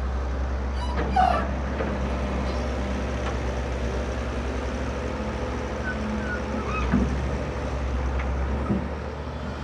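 Heavy diesel engine of earth-moving machinery running with a steady low drone, with a couple of short animal-like cries, one about a second in and another near seven seconds.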